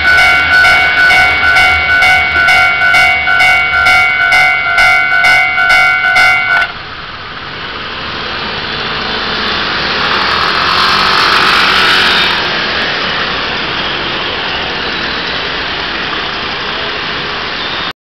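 Level-crossing warning bell ringing about twice a second, then cutting off suddenly a little over six seconds in as the crossing opens. Then a swarm of motor scooters and cars pulls away across the tracks, swelling briefly and settling into steady traffic noise.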